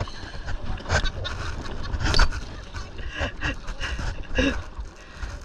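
Low rumbling wind or handling noise on the microphone of a camera held in a kayak, broken by a few sharp knocks, the loudest about two seconds in, with faint voices of people close by.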